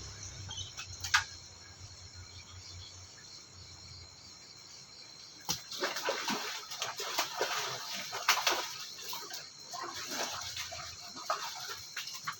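Irregular water splashing with sharp knocks, a single click about a second in and then a busy run of splashes and knocks from about halfway through.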